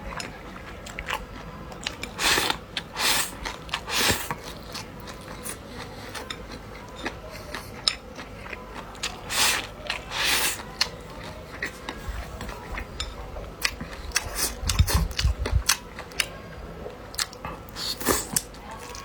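A person eating close to the microphone: chewing and biting, with irregular small clicks and a few louder crunching or slurping bursts, and a low bump about fifteen seconds in.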